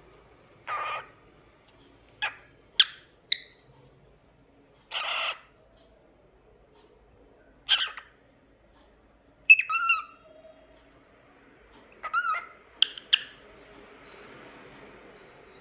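Cockatiel calling in a loose series of short chirps and whistled notes, a few of them harsher and rasping, with short pauses between.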